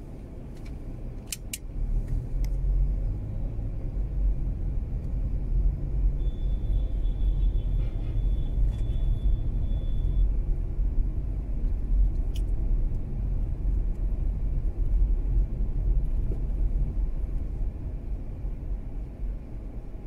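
Mazda 3 on the move in traffic: a steady low rumble of engine and road noise that grows louder about two seconds in as the car picks up speed. A few sharp clicks sound near the start and once more later on.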